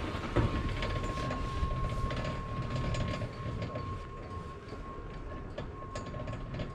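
1994 Garaventa-CTEC quad chairlift with bottom drive running: a steady high whine under a low rumble, with scattered clicks and clattering knocks from the machinery and haul rope, the loudest knock just under half a second in. The rumble and clatter ease off a few seconds in.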